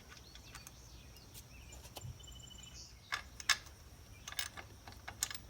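A few light clicks and knocks from the Ford 501 sickle bar mower's flywheel and pitman arm bolts being turned and fitted by hand, the loudest about three and a half seconds in. Faint bird chirps and insects in the background.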